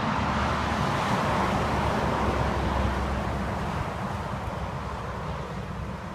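Highway traffic noise: a passing vehicle's tyre and engine sound swells in the first couple of seconds, then fades away.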